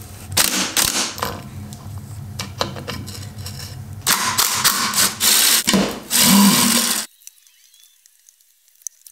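Hand tools clicking and scraping on a motorcycle swing arm as the chain slider is pried off. About four seconds in, a DeWalt cordless driver runs in several short bursts, driving out fasteners. A little before the end, the sound drops abruptly to faint ticks.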